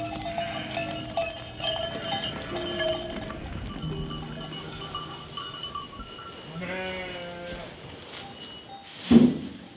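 A flock of sheep at their feeding troughs, with bells clinking in the first half and one sheep bleating for about a second, about seven seconds in. A loud knock comes just before the end.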